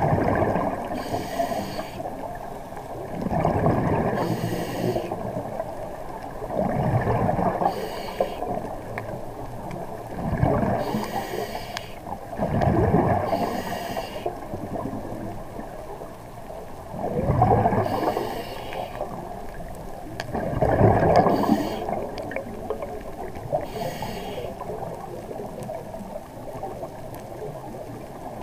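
A scuba diver breathing through a regulator, recorded underwater: a hissing inhale and a rumbling, gurgling burst of exhaled bubbles, about one breath every three to four seconds, quieter in the last few seconds.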